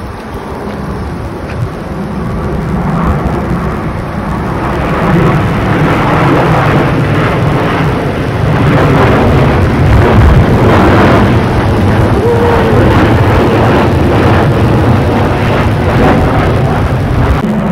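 Twin-engine jet airliner passing low overhead: a loud jet roar that builds over the first five seconds and then holds steady.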